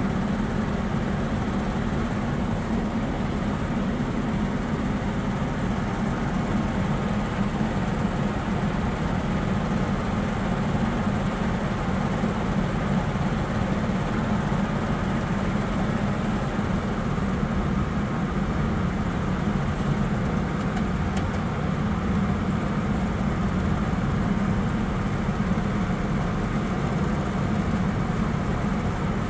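1980s furnace blower motor running steadily with a low hum, still shaking somewhat on its cracked mounting bracket, which has been steadied with two added screws.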